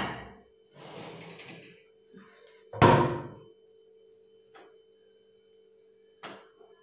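Steel kitchenware handled on a counter: one loud metallic clank with a short ring about three seconds in, a softer scrape before it, and a couple of light knocks later, over a faint steady hum.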